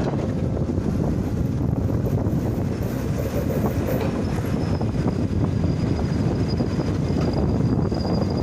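Heavy earthmoving machinery running: a steady low engine rumble, with a thin high squeal that comes in about four seconds in and holds.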